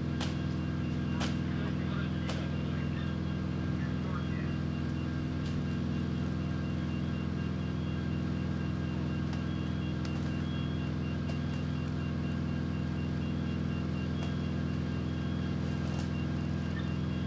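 Fire truck's diesel engine running steadily at constant speed, a deep hum with several steady tones. A few sharp clicks or knocks sound near the start and again near the end.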